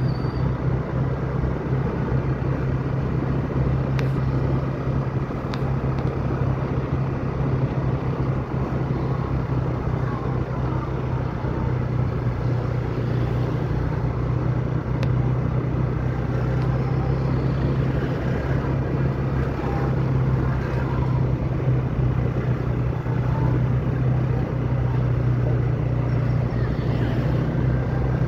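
A motor vehicle running steadily: a constant low engine drone over an even rushing noise.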